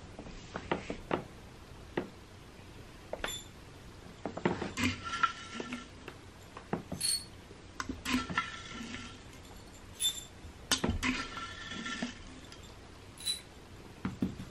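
Cats eating dry kibble from small ceramic saucers: irregular crunching clicks, with several ringing clinks as the saucers knock and rattle.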